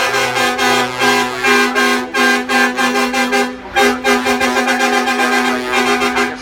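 Brass-heavy music with a steady, rhythmic beat, dropping out briefly about three and a half seconds in.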